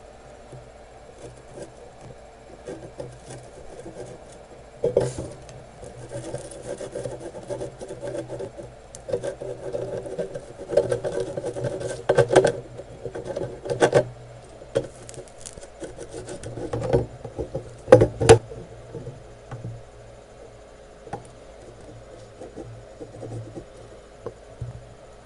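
Desoldering braid pressed under a soldering iron and rubbed over a circuit board, giving stretches of scraping and rubbing with sharp clicks and knocks from handling, loudest in the middle of the stretch. A steady low hum runs underneath.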